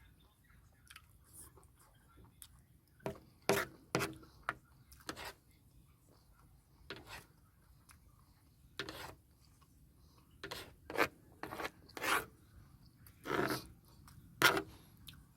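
Eating sounds: a person handling and chewing food, with about a dozen short, irregular scraping and rustling noises.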